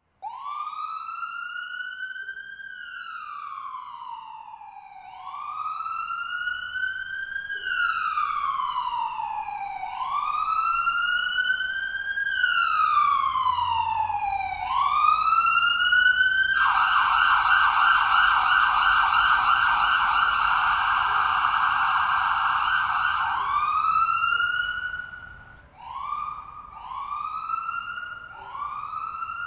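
Ambulance siren wailing in slow sweeps, each rising for a couple of seconds and falling back. About halfway through it switches to a fast yelp for about seven seconds, then returns to shorter rising sweeps. It grows louder toward the middle and fades near the end.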